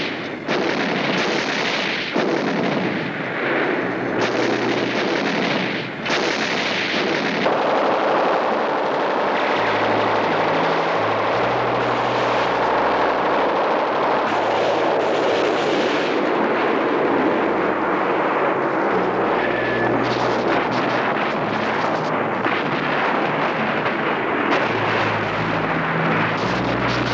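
Battle din of artillery and gunfire: several separate heavy blasts in the first few seconds, then a dense continuous barrage of firing and explosions.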